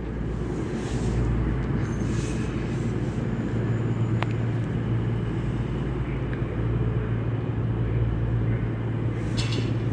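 Diesel engine of a Class 43 HST power car running as the train pulls away: a steady low drone.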